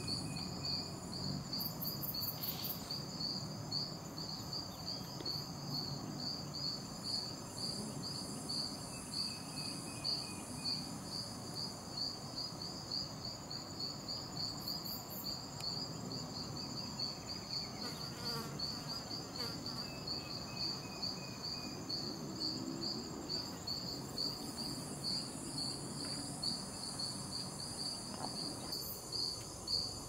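Chorus of rainforest insects calling: an even pulsing chirp repeating a few times a second, with a steady higher-pitched buzz above it that comes and goes.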